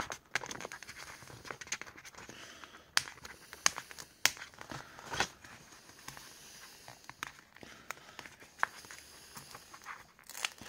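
Fingernails picking at a peel-off sticker and peeling it off its backing sheet: scattered small sharp clicks and faint crinkling of paper.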